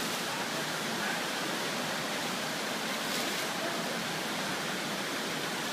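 River water rushing, a steady even hiss with no distinct splashes.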